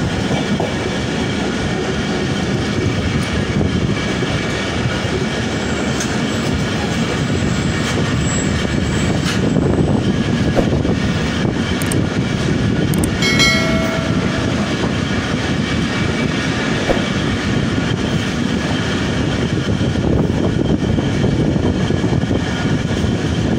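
A long passenger train's coaches running past on the adjacent track: a steady loud rumble with the clatter of wheels over rail joints.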